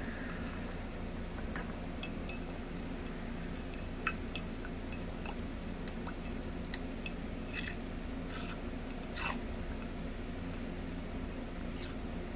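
Steady low hum with a scattering of light clicks and taps, the sharpest about four seconds in.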